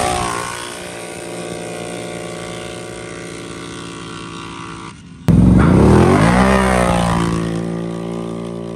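Two ATV engines at full throttle launching side by side, the engine note climbing and dropping as they rev through the gears, then fading as they pull away. About five seconds in, another pair launches suddenly loud close by and fades the same way.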